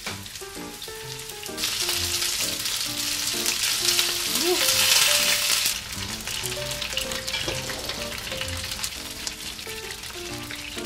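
Chicken thigh pieces shallow-frying in plenty of oil in a frying pan. A loud sizzle runs for about four seconds, then drops to a quieter sizzle.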